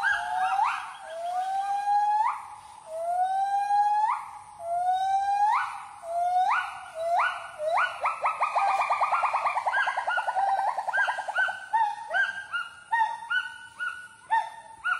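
Gibbon song: a series of loud whooping notes, each rising in pitch, about one a second. They build into a fast quavering trill a little past the middle, then break into shorter, quicker hoots.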